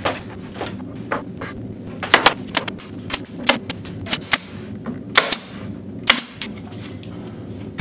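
Pneumatic nailer firing nails into a Valchromat fibreboard panel: about a dozen sharp shots in quick, uneven succession, mostly from about two seconds in.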